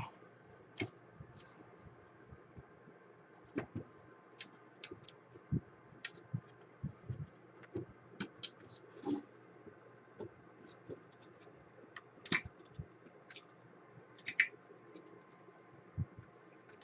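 Scattered faint clicks and taps of plastic wire connectors being pushed onto circuit-board header pins and of a disk drive's case being handled, with two louder clicks in the last few seconds.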